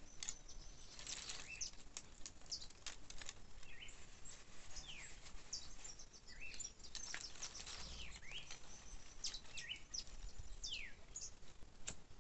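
Birds calling outdoors: short high calls that slide downward in pitch, repeated every second or two, over scattered light clicks and crackles.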